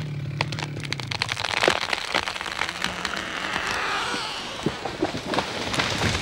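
A large tree being felled: the wood of the hinge cracks and snaps in a quick run of sharp pops, then the crown rushes down through the neighbouring branches with a swelling swish and scattered snaps. A chainsaw runs at idle at first and stops about a second in.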